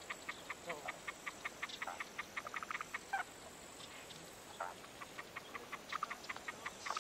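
A fast series of short clicking calls from wildlife, about seven a second, in a run of about three seconds that stops and starts again near the end, with a few short bird chirps between.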